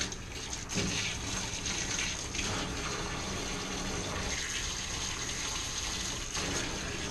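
Water running steadily from a hand-held grooming-tub spray hose onto a wet dog's coat as it is rinsed.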